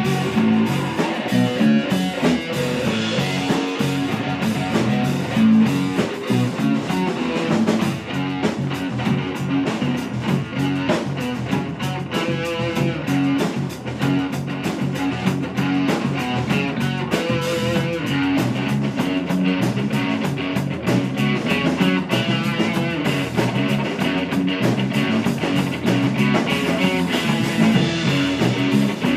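Rock band music with guitar, instrumental with no singing.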